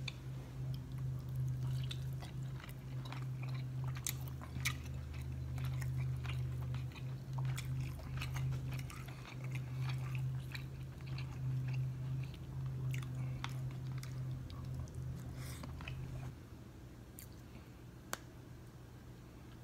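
Close-up mouth sounds of someone eating sauced seafood such as shrimp: chewing, wet smacks and short sharp clicks. A steady low hum runs underneath and stops about three-quarters of the way through.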